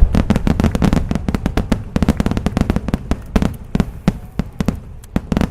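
Large star mine fireworks barrage: a dense, rapid string of shell bursts and crackling with deep booms. It thins out and gets quieter toward the end, leaving only a few scattered pops.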